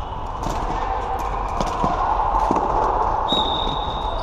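Floorball play in a sports hall: sharp clicks and knocks of sticks striking the plastic ball and each other, over a steady echoing hall din, with a high squeal about three seconds in that lasts about a second.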